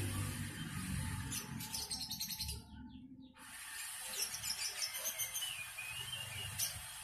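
Small birds chirping, with two rapid high trills about a second long, one early and one a little after the middle, and a warbling whistle near the end.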